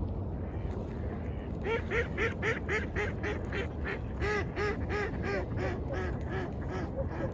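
A duck quacking in a long, rapid run of short quacks, about three to four a second, starting a little under two seconds in. Under it runs a steady low rumble of waves.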